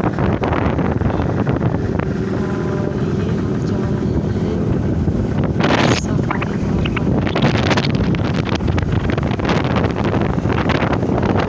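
Wind buffeting the microphone over the engine and road noise of a moving vehicle, with louder gusts about six and seven and a half seconds in.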